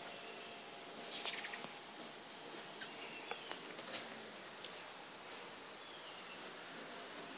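Hummingbirds chasing each other around a feeder: a few sharp, very high chips scattered through, with a quick run of chattering about a second in.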